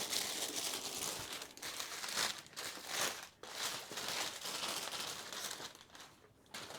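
Packaging crinkling and rustling as it is handled during unboxing, a dense run of small crackles that dies away about six seconds in.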